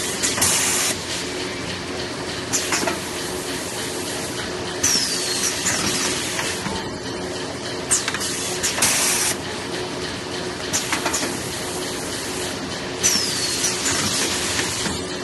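Semi-automatic multi-roll toilet paper packing machine running with a steady hum. Short hissing bursts come about every two seconds, typical of compressed-air exhaust as its pneumatic pushers cycle.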